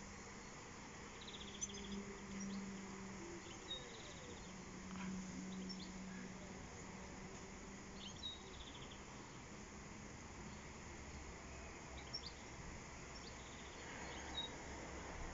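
Faint outdoor ambience: a steady background hiss with scattered short bird chirps and a few quick high trills. A low hum comes twice in the first half, and a low rumble sets in near the end.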